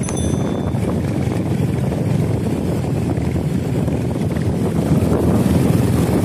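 A motorcycle ridden along at speed: wind rushing over the microphone with the engine running steadily underneath. A brief high chime at the very start.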